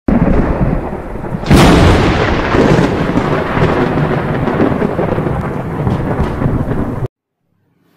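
Thunder sound effect for a logo intro: a loud crack about one and a half seconds in, then a long rumble that cuts off abruptly about a second before the end.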